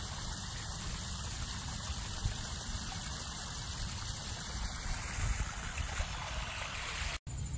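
A backyard pond's small waterfall splashing and trickling steadily, with a low rumble underneath; the sound breaks off for a moment near the end.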